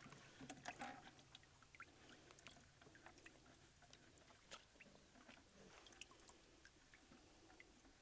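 Faint, scattered wet clicks and squishes of hands handling small fish in a bucket of water and a mesh landing net, with a faint low hum that stops about six seconds in.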